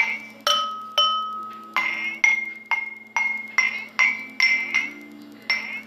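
Glass cups holding different amounts of water struck one after another, about two strikes a second, each ringing as a clear pitched note. Most strikes sound the same higher note; a lower note rings for about a second near the start.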